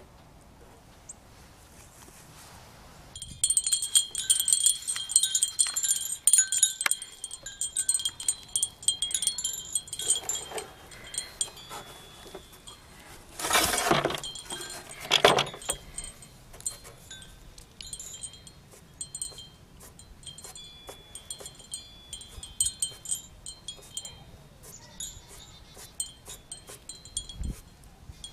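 Wind chimes tinkling, with repeated high ringing notes starting a few seconds in and growing sparser later. There are two short, louder bursts of noise near the middle.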